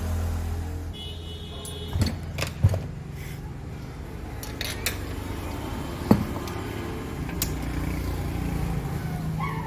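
A low electric motor hum stops about a second in, followed by a few sharp clicks and knocks.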